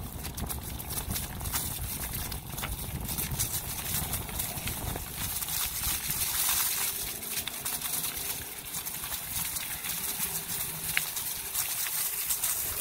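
Bicycle tyres rolling over dry fallen leaves, a continuous crackle and crunch full of small clicks, with a low rumble that fades about five seconds in.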